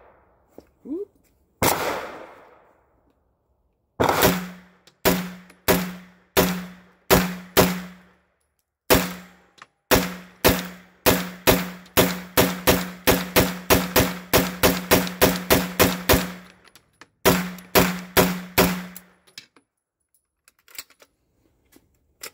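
PTR 9CT, a semi-automatic 9mm MP5-style pistol, being fired: one shot, then a long, fast string of about thirty-five shots that quickens to about three a second, with two short breaks, ending about three seconds before the end.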